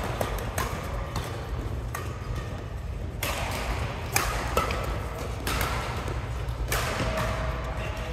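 Badminton rackets striking a shuttlecock during a doubles rally: a series of sharp hits roughly a second apart, over a steady low hum.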